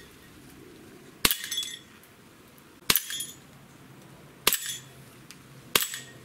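Sig Sauer ProForce P229 6 mm green-gas blowback airsoft pistol firing four single shots, about a second and a half apart. Each is a sharp crack of the slide cycling, followed by a brief clinking ring.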